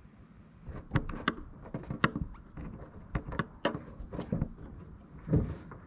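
A replacement windshield and its rubber gasket being pushed by hand into a truck cab's window opening: a string of irregular knocks and bumps starting about a second in.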